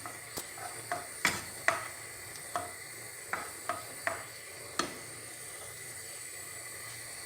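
A utensil stirring chopped onion and garlic in olive oil in a pan, knocking and scraping against the pan about nine times in the first five seconds, over a faint sizzle from the frying onion.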